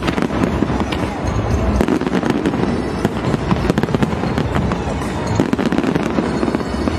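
Large fireworks display: a dense, continuous run of crackles and pops from bursting shells, with deep booms underneath.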